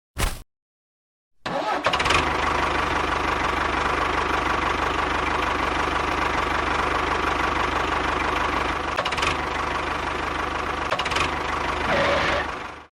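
Engine running steadily at an even speed. It starts about a second and a half in and cuts off abruptly near the end.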